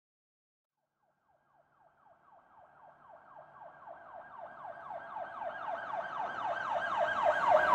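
Emergency vehicle siren in a fast yelp, its pitch sweeping up and down several times a second. It fades in from silence about a second and a half in and grows steadily louder as it comes closer.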